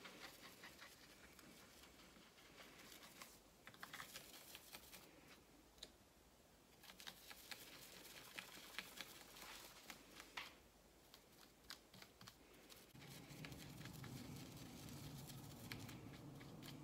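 Faint scratchy scrubbing of an eyeshadow brush's bristles through soapy lather on a textured silicone brush-cleaning mat, in irregular spells full of small clicks. A faint low hum comes in about three-quarters of the way through.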